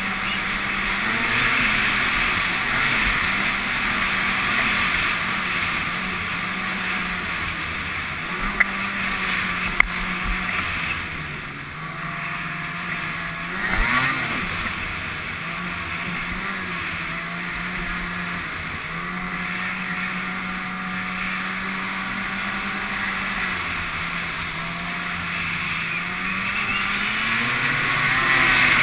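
Ski-Doo snowmobile engine running steadily under way, with the revs rising briefly about halfway through and again near the end. Two sharp clicks come about a third of the way in.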